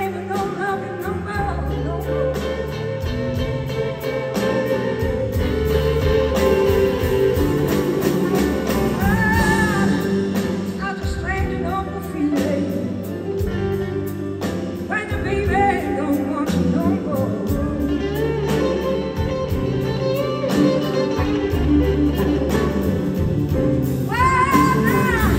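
Live band playing a slow blues on electric guitars, bass, keyboards and drums, with singing and guitar lines bending in pitch.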